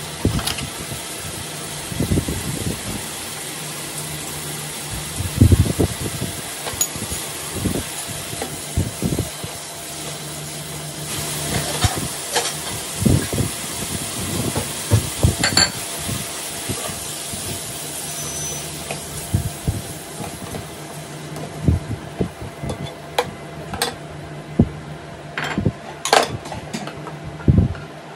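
Food sizzling in a nonstick frying pan on an induction cooktop, over a steady low hum, with many short clacks and scrapes of a spatula against the pan. The sizzle fades in the second half while the scraping goes on as the food is scraped out of the pan.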